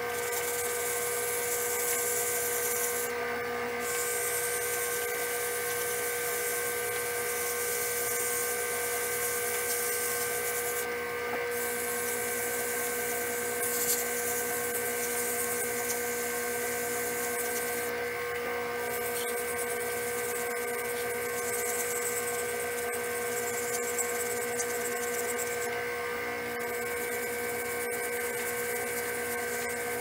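Wood lathe running with a steady motor whine while micro-mesh sanding pads rub against the spinning Alumilite resin pen blank. The high hiss of the rubbing drops out briefly several times as the pad is lifted or changed.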